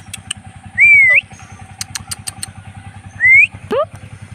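Indian ringneck parrot giving three short, clear whistled calls: a bending whistle about a second in, then a rising one and a fast upward sweep near the end. Under them runs a steady low mechanical rumble.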